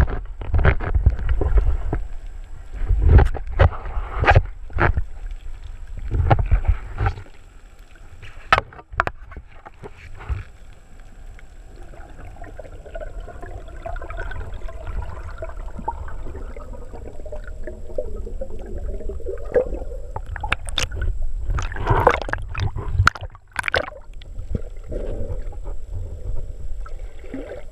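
Muffled underwater sound through a camera housing: a speared queenfish knocking against the steel spear shaft as it is handled, with irregular knocks and thumps and water gurgling. The knocks are thick in the first several seconds, ease off into a quieter stretch with a faint wavering hum, and return in a cluster about three quarters of the way through.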